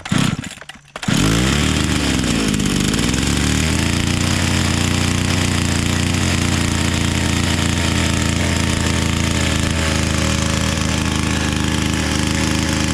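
A chainsaw engine starts about a second in, its speed dips and recovers, and it then runs steadily and loudly.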